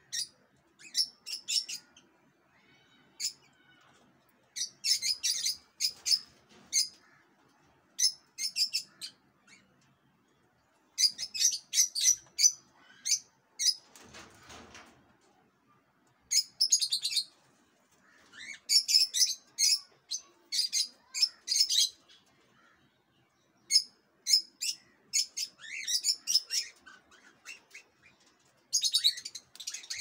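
Small cage parrots (budgerigars and cockatiels) chirping in quick bursts of high, rapid chirps with short pauses between. About halfway through there is a brief noisy sound without chirps.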